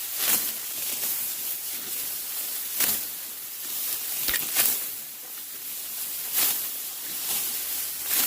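Dry rice stalks rustling as they are handled during harvesting, with a crisp swish every second and a half or so over a steady high hiss.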